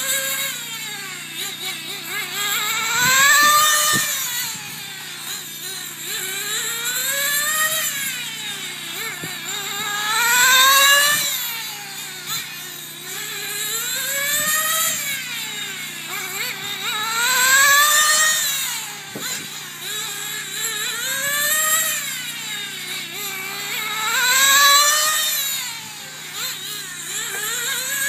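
Two-stroke nitro glow engine of a 1/10-scale RC sprint car running laps on an oval. Its engine note climbs in pitch along each straight and drops into each turn, about every three and a half seconds. It gets loud four times, about every seven seconds, as the car passes close.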